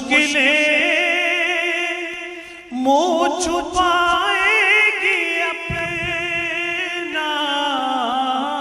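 A man's voice sings an Urdu naat with no instruments, through a microphone and PA. He holds long notes with wavering, ornamented melisma, and a fresh phrase starts about three seconds in.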